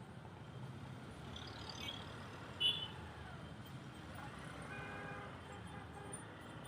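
Road traffic noise heard while riding through town, a steady rumble of engines and tyres, with a brief high-pitched beep about two and a half seconds in and a fainter pitched tone a little after the middle.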